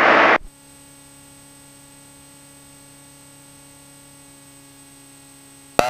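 Aircraft intercom and radio audio feed between transmissions: a faint steady hum with several fixed tones. It opens with a brief hiss of radio static as one transmission cuts off, and near the end a burst of static comes in as the next transmission keys up.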